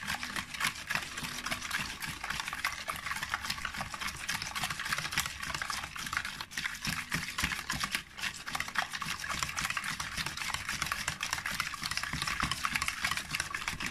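Wire whisk beating a liquid egg-and-milk mixture in a plastic bowl: a fast, steady run of clicking strokes, broken by two brief pauses a little past halfway.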